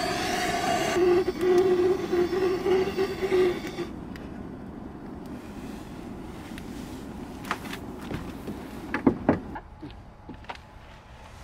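A small electric motor whirs steadily for about four seconds and then stops, followed by a few sharp clicks and knocks.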